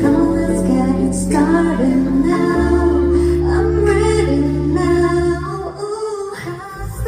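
Live band playing a pop song with a female lead vocal singing over sustained bass notes; the band thins out briefly about six seconds in.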